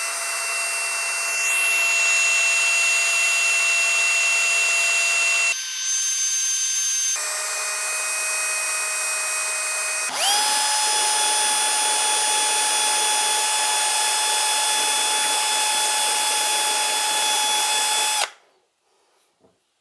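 Small power tool spinning a diamond-coated bit against a piece of quartzite, grinding at a small edge and a pit in the stone: a steady high whine over a hiss. Its pitch drops about a third of the way through, then it comes back louder and higher for the second half and stops a little before the end.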